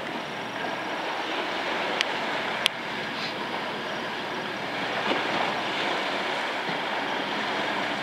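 Steady hiss of choppy sea water washing in the harbour entrance, with two short sharp clicks about two seconds in.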